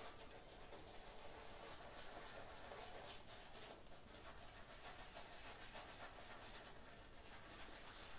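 Boar-bristle shaving brush (Omega 10065) swirling and rubbing lather over a bearded face: a faint, steady wet brushing.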